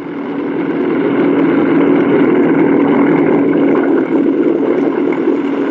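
Piston aircraft engines running at steady power, a loud, even drone with no change in pitch.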